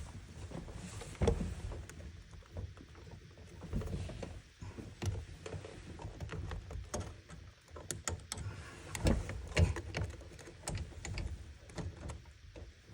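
Scattered knocks, clicks and rubbing of hands working on a dishwasher's parts, several sharper knocks in the second half.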